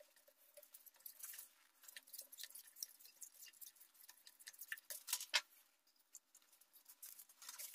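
Faint clicks and rustles of PTFE (Teflon) thread-seal tape being wrapped by hand around a threaded metal pipe end, with one sharper click a little past five seconds in.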